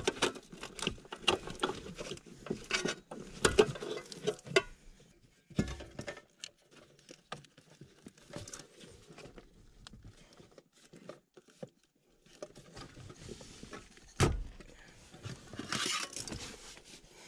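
Scattered clicks, knocks and light rattles of hand work on a car's ECU, as it is unbolted and unplugged. They come thick in the first few seconds, thin out, and there is a single sharper knock near the end.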